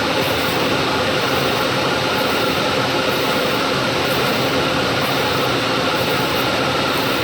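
Large lathe running, a steady mechanical whir with faint steady tones and no change in level.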